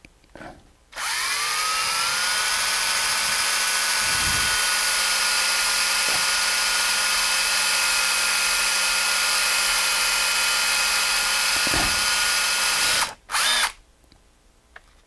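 Electric drill spinning up about a second in to a steady whine, drilling a small 3/32-inch hole with a twist bit, then switched off and cutting out suddenly near the end, followed by one brief short sound.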